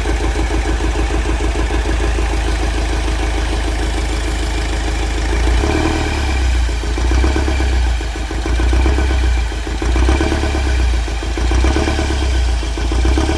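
Mahindra Scorpio mHawk diesel engine running, first at a steady, even idle. About five or six seconds in, its note deepens and rises and falls unevenly, as if it is coming under load. This engine has the tapping knock under load that is being diagnosed.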